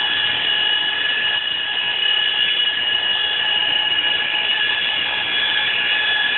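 A motor-driven machine running steadily: a high, unchanging whine over a rush of air, as made by cleanup equipment.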